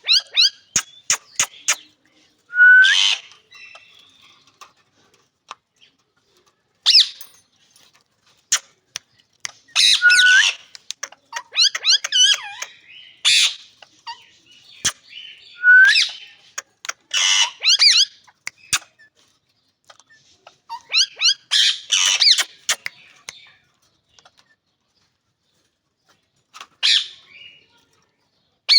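Ring-necked parakeet calling in short bursts of sharp calls that sweep up and down in pitch, with quiet gaps between them and scattered sharp clicks.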